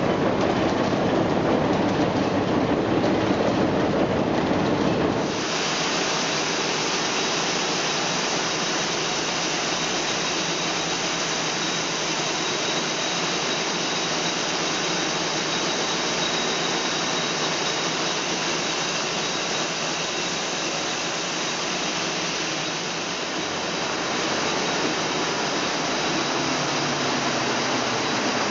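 Water rushing and splashing for about five seconds, then an abrupt change to old textile mill machinery running: a steady, even clatter and hiss from yarn frames, with a faint high whine.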